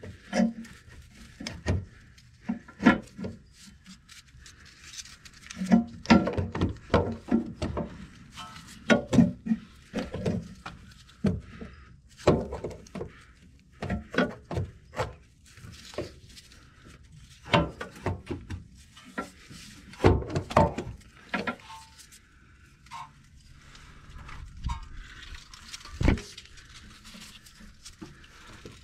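Irregular clunks and knocks as a loose, unbolted starter motor is worked by hand through the engine bay toward the wheel-well opening, bumping against the surrounding metal.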